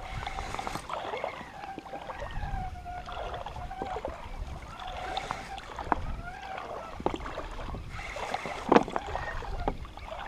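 A 2500-size spinning reel being cranked steadily as a hooked snapper is played and wound in on light line, the reel's whirring rising and falling with the winding, along with scattered clicks. A single sharp, loud knock comes about nine seconds in.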